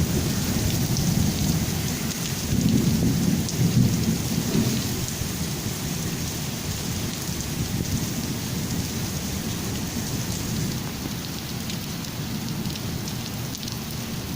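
Heavy rain falling steadily, with fine drop ticks through it. A low rumble of thunder swells about three seconds in and slowly dies away.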